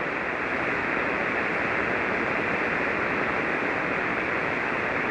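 Shortwave receiver tuned to the 40-metre band in single-sideband mode, giving a steady band-noise hiss with no signal on the frequency. The hiss is cut off above about 3 kHz by the receiver's sideband filter.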